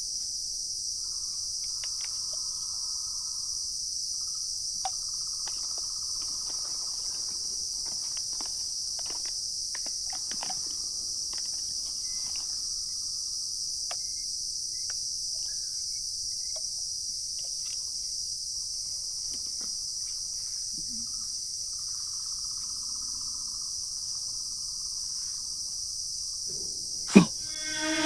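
Steady, high-pitched chorus of insects that runs without a break, with faint scattered clicks, and one sharp loud click near the end.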